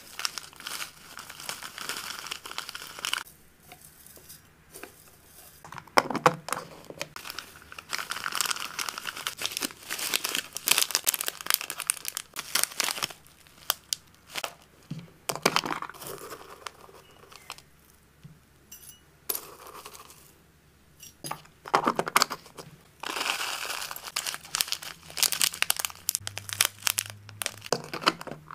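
A clear plastic zip bag crinkling as it is handled and filled, with dried herbs and flowers rustling as they are poured into it. Several sharp clicks come in between, and near the end a plastic storage-container lid is pressed shut.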